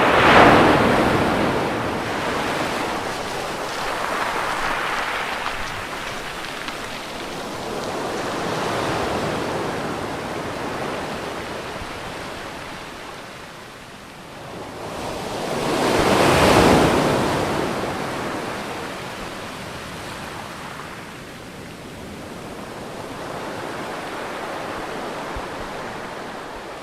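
Ocean waves breaking and washing on the shore. Two large waves crash, one right at the start and another about sixteen seconds in, with smaller waves swelling and fading between them.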